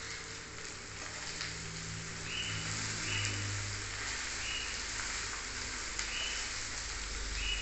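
Chopped okra frying in oil in a pan with a steady sizzle, while a spatula stirs and scrapes through it every second or so.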